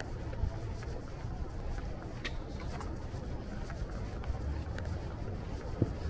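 Outdoor city ambience: a steady low rumble of traffic with faint distant voices and a few short clicks.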